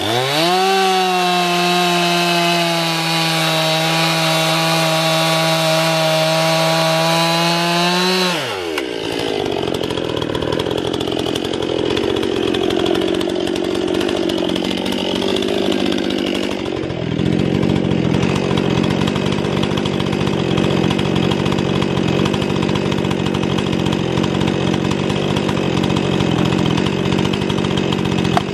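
Gasoline chainsaw at full throttle, a steady high whine for about eight seconds, then running rougher and lower for the rest, with a brief dip about seventeen seconds in.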